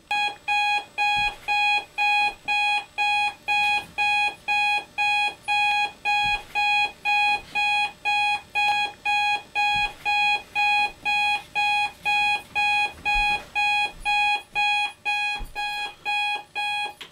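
Electronic alarm clock beeping: a steady, high single-pitched beep repeating about twice a second, which cuts off suddenly near the end.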